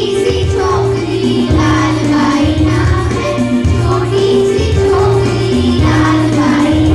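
A Hindi song sung by a group of children in chorus, with instrumental accompaniment and a steady bass beat.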